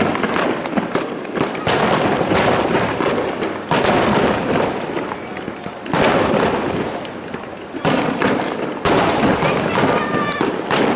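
Starmine fireworks barrage: shells bursting in quick succession, a loud boom every one to three seconds with the sound staying dense between booms.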